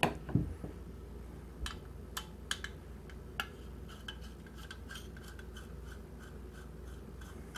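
Small screwdriver working screws out of a projector lamp's thin sheet-metal cage: scattered light metallic clicks and taps, then faint small ticks as a screw is turned.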